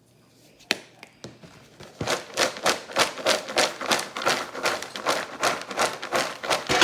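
Popcorn kernels popping: a couple of single pops, then from about two seconds in a quick run of sharp pops, several a second.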